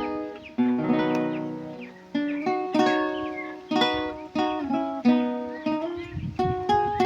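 Requinto guitar played solo: a plucked melody of single ringing notes and chords. About six seconds in it breaks into quick, dense low strokes.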